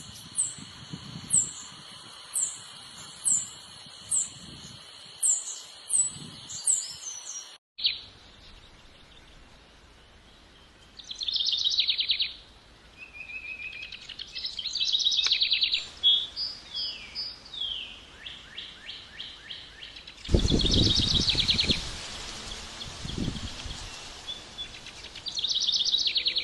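Songbirds calling. For the first several seconds a high, quick falling chirp repeats about once a second over a steady high buzz. After a sudden cut, rapid trilled calls come in short bursts of about a second each, and a brief low rumble comes in partway through.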